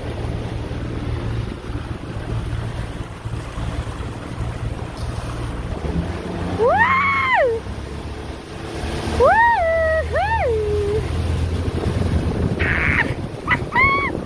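A small motorboat's outboard motor running steadily under way, with wind and rushing water. From about halfway in come several loud, high, sliding whoops, each rising, holding and falling, two of them close together and two shorter ones near the end.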